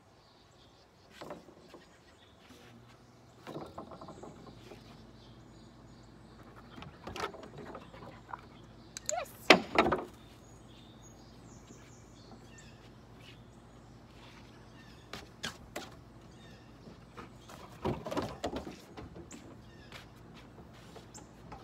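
Scattered thumps and scuffs of a dog and a person moving about at play on a wooden deck and lawn, the loudest knock about nine and a half seconds in. A faint low steady hum comes in about three seconds in.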